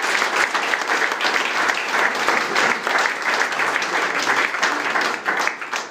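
A small crowd of people in a room applauding, with many hands clapping steadily. The clapping dies away at the very end.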